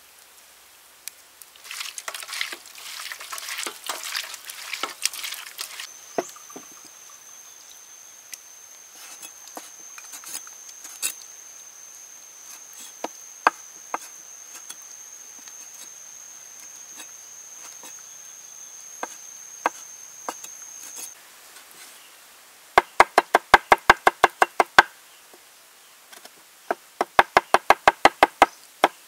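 Cleaver chopping fast on a wooden cutting board, mincing snail meat and pork: two quick runs of sharp knocks, about ten a second, in the last third. Before that, a steady high-pitched whine for about fifteen seconds with scattered light clicks, and at the start a wet crackling rustle.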